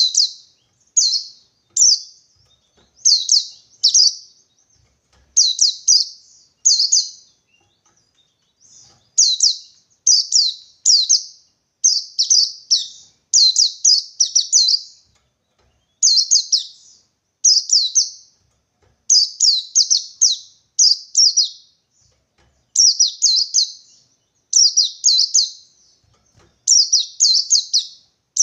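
White-eye (pleci) singing the wild-type '1-2-3' song: short, high chirps in quick groups of one, two or three, repeated with brief pauses. It is a rival-challenge call, meant to provoke other white-eyes into singing.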